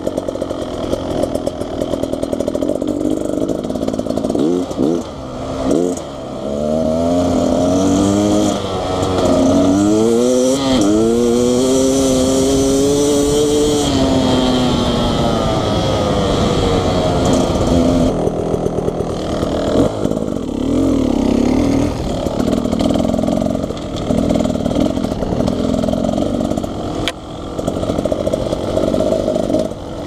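Two-stroke engine of a 2019 Beta Xtrainer dirt bike running under load while riding, climbing in pitch several times in a row as it accelerates through the gears, then running more steadily.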